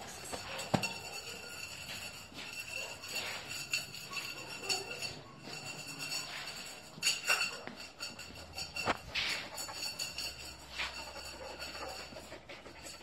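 Light metallic jingling and clinking with scattered sharp knocks, the loudest a single knock about a second in.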